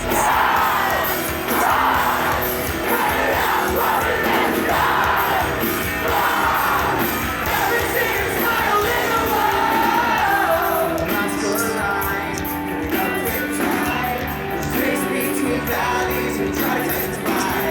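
Rock band playing live, with a singer's loud vocals over guitars and drums and a crowd yelling along.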